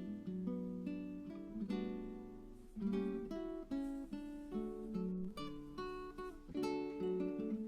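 Background music: an acoustic guitar playing plucked notes and chords in a continuous flowing line.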